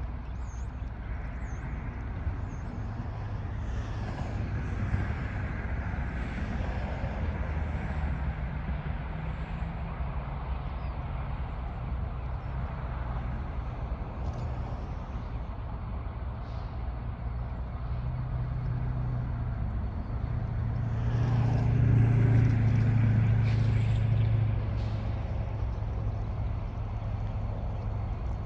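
Steady low engine rumble from a vehicle, swelling louder for a few seconds about three quarters of the way through.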